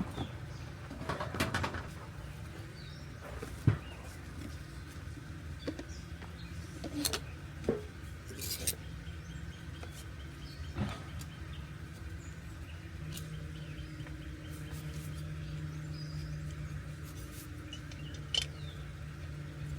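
Birds chirping over a low steady hum that grows stronger about two-thirds of the way through, with scattered sharp clicks and knocks.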